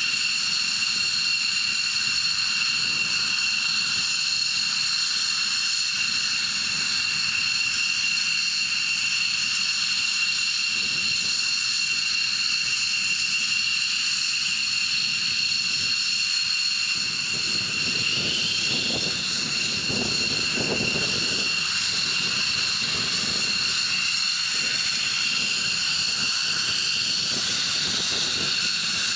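F-15 fighter jet engines running on the taxiway: a steady, high-pitched turbine whine with several held tones over a hiss. A deeper rumble swells about halfway through, then eases.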